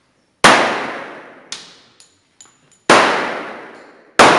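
Three shots from a .45 ACP pistol, each trailing off in a long echoing tail. The second comes about two and a half seconds after the first, and the third about a second and a half later. Fainter sharp cracks fall between the first two and the second.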